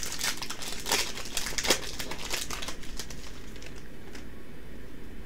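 Foil booster pack wrapper crinkling and crackling in the hands, busiest in the first three seconds, then only a few faint ticks.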